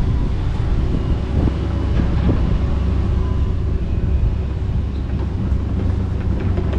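Kobelco SK85 MSR 8-ton excavator's diesel engine running steadily under working load, with a few sharp knocks and cracks in the first couple of seconds.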